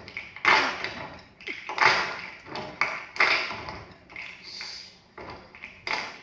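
A series of irregular sharp taps, roughly one a second, each fading quickly with a short ring.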